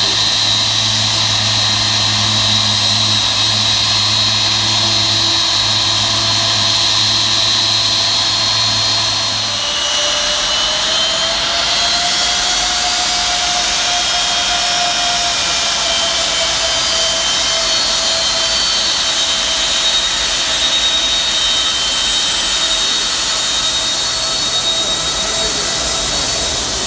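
Boeing 757-200 jet engines whining at taxi power as the airliner rolls and turns, a high steady whine throughout. About ten seconds in, a low steady hum underneath stops, and the engine tones then rise and fall gently as it turns away.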